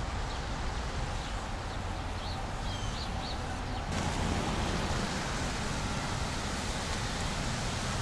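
Steady outdoor city background noise, a low rumble of distant traffic, with a few faint high chirps in the middle.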